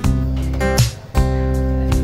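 Background music of strummed acoustic guitar, with a new chord struck after a brief gap about a second in.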